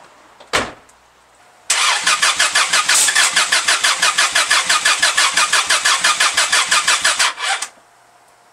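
A sharp click, then the starter cranks the turbocharged Subaru EJ22 flat-four with a fast, even chugging for about six seconds. The cranking stops without the engine catching.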